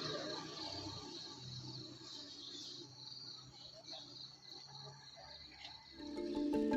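Faint, steady, high-pitched insect chirring, cricket-like. About six seconds in, louder marimba-like music starts over it.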